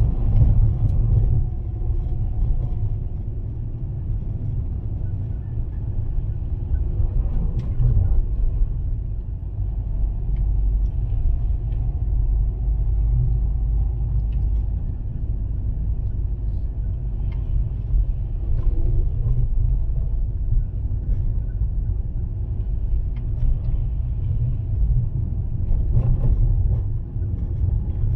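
Fiat Panda 4x4 driving on a wet, snowy mountain road: a steady low rumble of engine and tyres, with a few faint clicks from the car.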